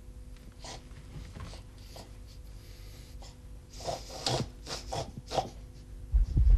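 A sleeping person snorting: a run of short, quick snorts about four to five and a half seconds in. Near the end come a couple of loud, low thumps.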